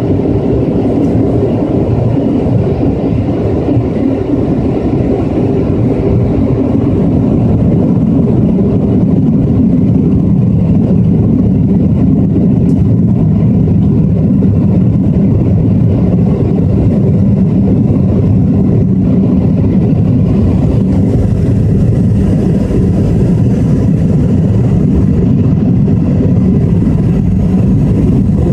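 Steady jet engine and airflow noise heard inside an airliner cabin during the descent to landing.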